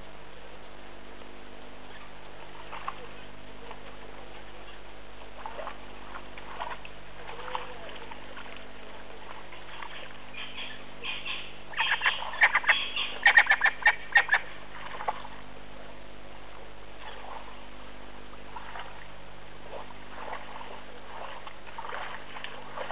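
Birds calling with scattered short chirps, and a burst of rapid, loud chattering calls from about 11 to 15 seconds in, over a steady low hum.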